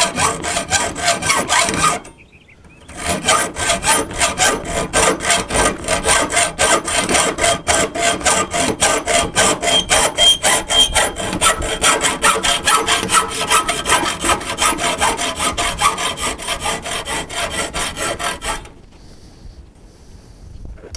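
Hacksaw cutting a ring off thin-wall 1-inch copper pipe clamped in a vise, in quick, even back-and-forth strokes. The sawing pauses briefly about two seconds in and stops a couple of seconds before the end.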